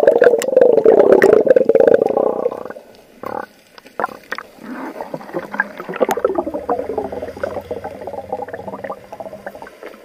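Sea water heard through an action camera held under the surface: loud muffled sloshing and bubbling for the first two or three seconds, then a quieter underwater rumble with scattered faint clicks.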